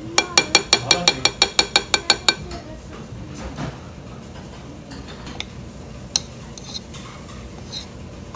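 A metal spoon tapped quickly against a ceramic bowl, about a dozen ringing taps in two seconds, as when knocking gochujang off the spoon. Then a few lighter clinks of utensils on the bowl near the end.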